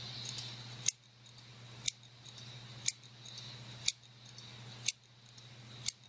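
Failed Western Digital 2.5-inch laptop hard drive ticking: a sharp tick about once a second, each followed half a second later by a fainter one, over the steady hum of the spinning platter. This is the hard drive "death rattle", the sign of a dead drive whose heads keep resetting.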